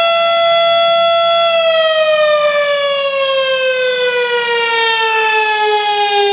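Federal Signal STH10 electromechanical siren sounding its Fire Call (attack) signal: it holds a steady high tone, then about a second and a half in begins a slow fall in pitch.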